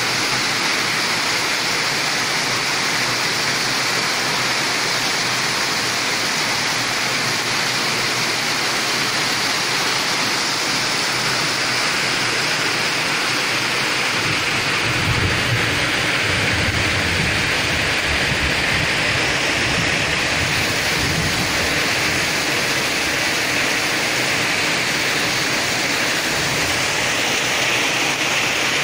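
Heavy rain pouring steadily, with a low rumble for several seconds about halfway through.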